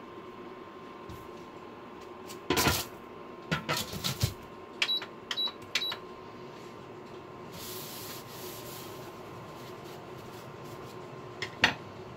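Clatter and knocks from flipping a steak in a countertop infrared oven, then three short high button beeps as the oven is set again. A brief hiss follows a few seconds later, and a single knock comes near the end.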